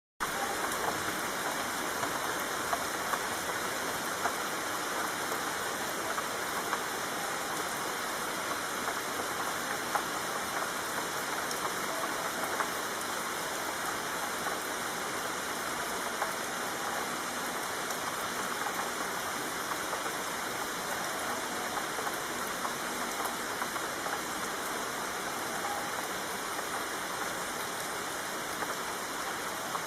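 Steady rainfall, a dense even hiss of many small drop impacts, starting abruptly right at the beginning.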